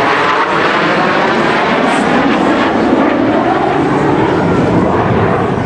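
Four Thunderbirds F-16 Fighting Falcon jets passing overhead in diamond formation, their engines making a loud, steady jet noise.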